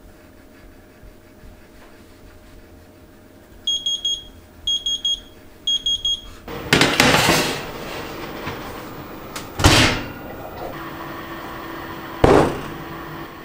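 Three short groups of high electronic beeps from an appliance, followed by cloth rustling, two sharp knocks and a steady low hum.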